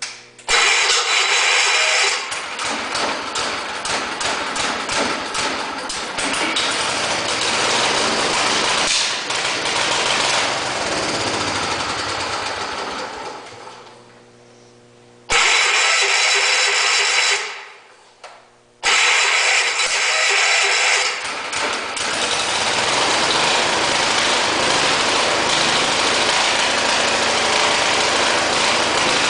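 Kohler K301AS single-cylinder engine on a John Deere 112 lawn tractor, primed with a little gas poured into the spark plug hole, starting and running, then dying out about 13 seconds in. It fires again briefly, stops, then starts a third time and runs steadily.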